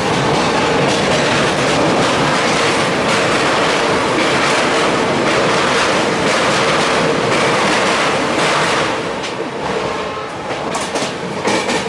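Indian Railways sleeper-class passenger coach running along the track, heard through its open window: a steady, loud rush of wheel and rail noise that eases a little near the end.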